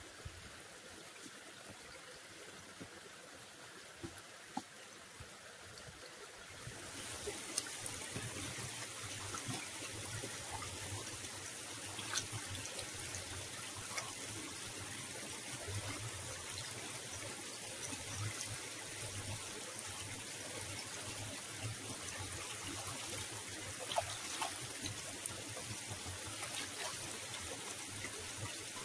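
Running water trickling, a steady splashing hiss with small drips and ticks, becoming clearly louder about seven seconds in.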